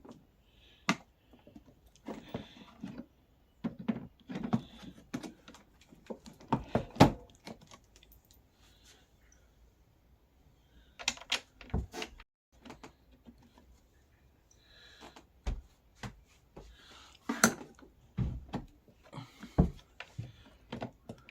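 Plastic handlebar being worked onto a kids' ride-on quad's steering rod: irregular knocks, clicks and light rattles of the parts being handled and pushed together, with the loudest knocks about 7, 11 and 17 seconds in.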